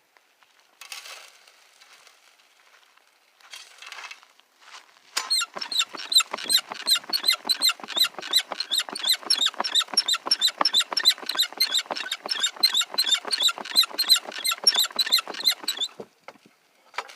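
Gold prospector's dry washer running dirt: a fast, even rattle of sharp clicks, several a second, that starts about five seconds in and stops near the end.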